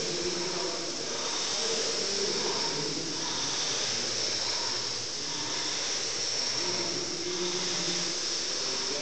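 Fan flywheel of an air-resistance rowing machine whooshing steadily, swelling slightly with each pull of the handle.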